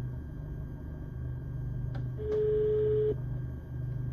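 Telephone ringback tone heard through the car stereo speakers via a Bluetooth aux receiver: one steady tone of about a second, the Italian ring signal that means the called phone is ringing. A faint click comes just before the tone, over a low steady hum.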